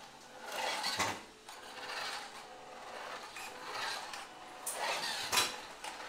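WPL D12 RC truck driving in short bursts, its brushed motor and gear transmission whirring up and down several times, with two sharp clicks. The motor's PWM buzz is damped by capacitors and an inductor fitted at the motor, so the buzz is lower than the transmission noise.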